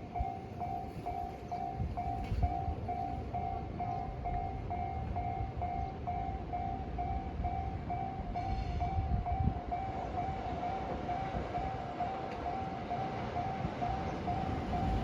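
Japanese level-crossing warning bell ringing steadily at about two rings a second, over the low rumble of a Thunderbird limited express train running past.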